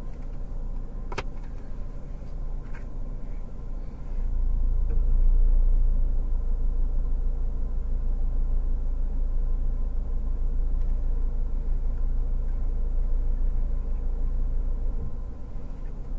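Car engine idling, a low steady rumble heard from inside the cabin, which grows louder about four seconds in and then holds. A couple of light clicks come in the first second.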